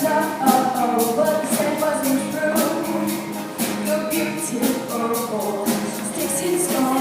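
A female vocal group, a soloist backed by the other girls, singing over band accompaniment with a steady percussion beat.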